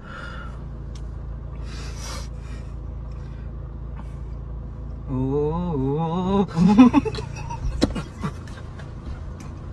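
Steady low hum of a car's engine and road noise heard inside the cabin. About five seconds in, a person's voice makes a long wavering sound, followed by sharp clicks and short breathy bursts.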